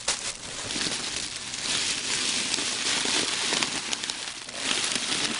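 Packaging crinkling and rustling as a cold-packed shipping box is unpacked by hand: a continuous crackly rustle, loudest in the middle.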